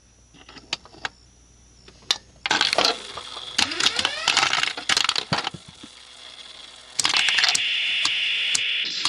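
Nishijin Red Lion wing-type (hanemono) pachinko machine in play. There are a few sharp clicks, then from about two seconds in a busy, loud clatter of steel balls mixed with the machine's electronic sound effects, some with rising tones. From about seven seconds a steadier, louder sound takes over.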